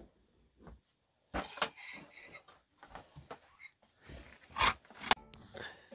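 A ceramic mug and plate being lifted and carried away: several light clinks and knocks of china, with rustling between.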